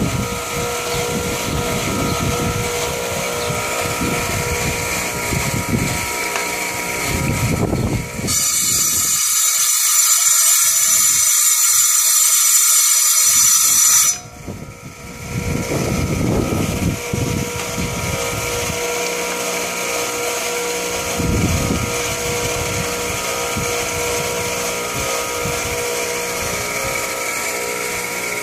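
Harbor Freight tile saw running with a steady motor whine while its blade cuts rock. About eight seconds in, the sound turns to a bright high hiss for roughly six seconds, then dips briefly before the steady whine returns.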